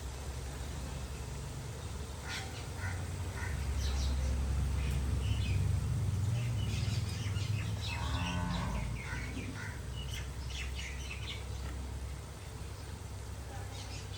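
Small birds chirping on and off, with a short farm-animal call, typical of cattle lowing, about eight seconds in, over a steady low rumble.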